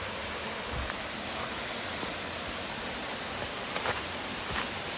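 Steady rush of a 15 m straight-drop waterfall, with a couple of short clicks near the end.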